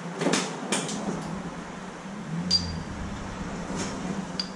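Scattered knocks, then two sharp metallic clinks with a brief ring, about two and a half seconds in and near the end: metal hand tools being handled in a workshop, over a steady low hum.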